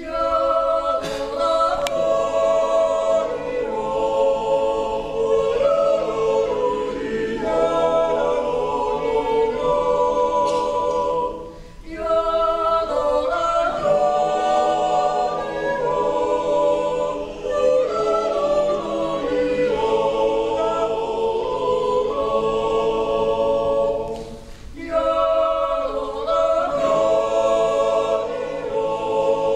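Swiss yodelling club, men and women together, yodelling a cappella in close harmony with long held chords. The singing breaks off briefly twice between phrases.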